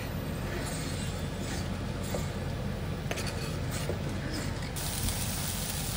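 A knife scraping sliced okra across a plastic cutting board into a hot pot, with a few light scrapes and clicks. About five seconds in, a sizzle starts as the okra hits the hot oil, over a steady low hum.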